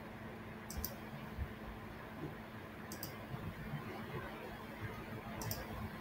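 Computer mouse clicking three times, each a quick double tick of button press and release: about a second in, about three seconds in and near the end. The clicks set breakpoints in a code editor. A faint steady hum runs underneath.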